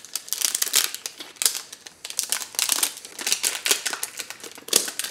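Hands fiddling with the hard plastic DJI Phantom 4 Pro+ remote controller: a run of small plastic clicks and rustling, with one sharper click near the end.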